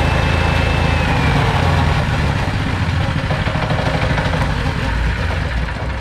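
A 6.5 HP single-cylinder four-stroke petrol engine driving a FFC 15 disk-mill flour grinder, running loud and steady as it grinds dry grain to powder. A thin high whine dips slightly about a second in, and the sound eases a little toward the end.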